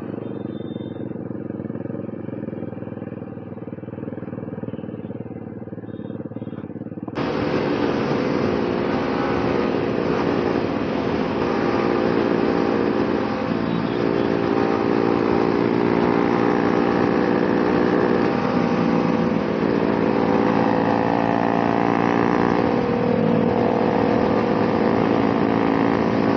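Sport motorcycles running steadily on the move: a Yamaha R15 V3 in fourth gear at about 80 km/h, alongside a KTM RC 200 and a TVS Apache RR 310 on Akrapovic exhausts. About seven seconds in, the sound turns suddenly louder and fuller.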